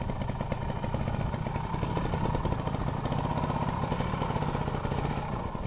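Trials sidecar outfit's motorcycle engine running steadily as the outfit rides over rough, rocky ground.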